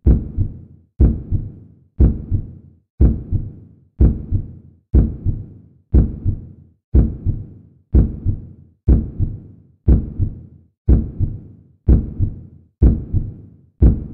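Deep thumping sound effect, one hit about every second, each dying away quickly.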